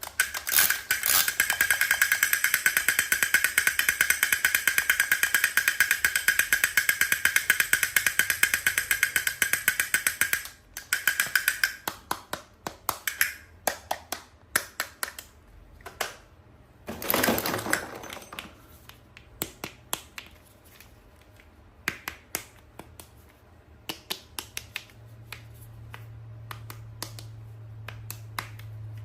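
Rapid, even clicking from handled toys for about ten seconds, then scattered clicks and taps, with a short rustling burst about two thirds of the way through and a faint low hum near the end.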